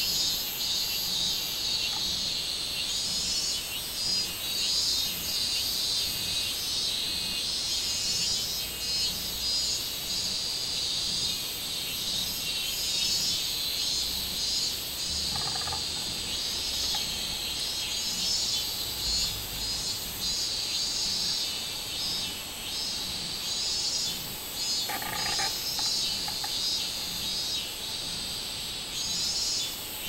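Robust cicadas (minmin-zemi, Hyalessa maculaticollis) singing together in the trees: a continuous high, pulsing buzz that swells and fades in waves. Two short, lower sounds break in, once about halfway and once near the end.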